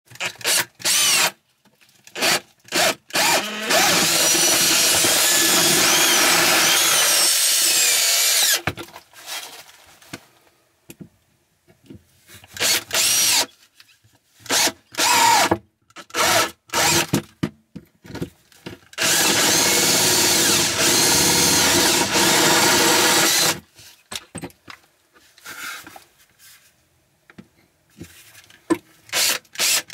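Makita BHP458 cordless combi drill boring through a floorboard with a Bosch Self Cut spade bit. It runs in short trigger pulls and in two longer spells of several seconds each.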